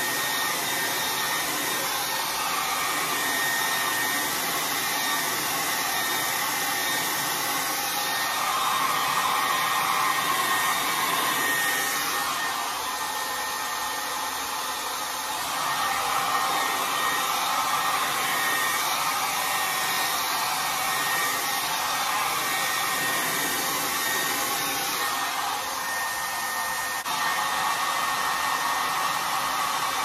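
Handheld hair dryer running steadily, a rush of air with a thin high whine. The sound shifts a little every few seconds as the dryer is moved through the hair.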